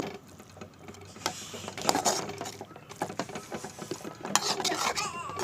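Spatula stirring and scraping chicken and masala around a pan, a quick string of small clicks and scrapes.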